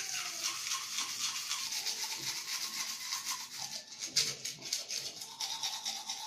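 A manual toothbrush scrubbing the front teeth gently in small circles: a rapid run of scratchy bristle strokes on the teeth.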